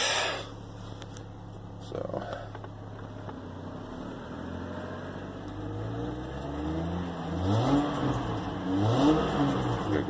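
2003 GMC Envoy's 4.2-litre engine running in gear, steady at first, then revved up and back down twice in the second half. It runs smoothly with good power, the misfire cured by a new coil pack.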